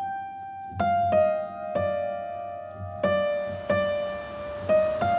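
Slow solo piano music: single notes struck one at a time, each left to ring and fade before the next.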